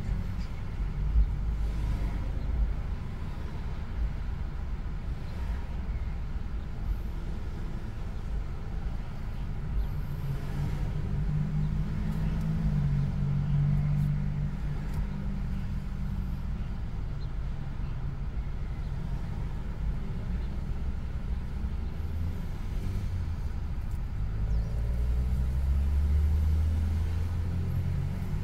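Low, steady rumble of a car being driven, engine and tyre noise heard from inside the cabin. The engine's hum swells for a few seconds about twelve seconds in and again near the end.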